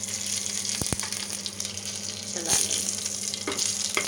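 Spices (mustard seeds, cumin, dried red chillies, curry leaves, a green chilli) sizzling in hot mustard oil in a frying pan: a steady hiss with a few sharp pops and clicks.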